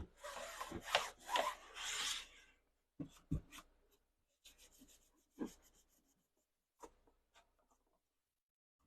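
Rubbing and scrubbing on a hard surface, as when a piece of electronics is wiped clean, for about two and a half seconds. Then come a few scattered knocks and handling sounds.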